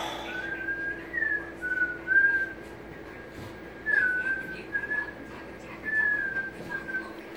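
A slow whistled tune: a run of held notes with small slides up and down between them, over a steady low hum.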